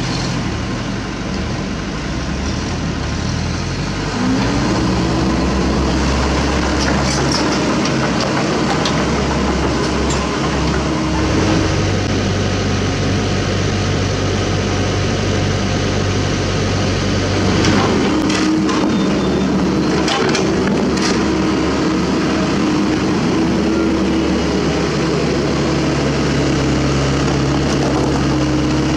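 Sany SY75 mini excavator's diesel engine running under hydraulic load, revving up about four seconds in and shifting pitch as the arm works, with a few short clanks about two-thirds of the way through.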